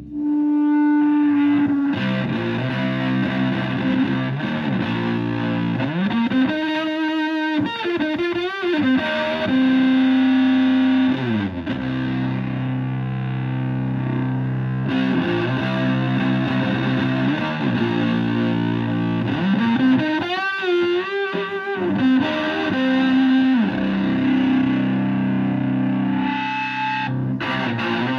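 Stratocaster electric guitar played through a treble booster into a Fender Twin Reverb–style amp, with a gritty, overdriven tone. It plays a slow lead of long held notes, with string bends and wide vibrato twice and a slide down between them.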